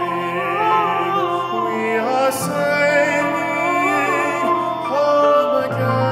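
Tenor and baritone voices singing a duet in a classical, operatic style with piano accompaniment, holding notes with vibrato.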